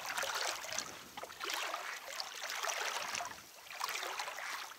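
River water sloshing and lapping in uneven surges, each swelling and fading within about a second.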